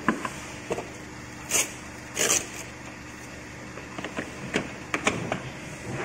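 Plastic wardrobe panels being fitted together by hand: scattered clicks and knocks, with two short scraping rustles in the first half, over a steady low hum.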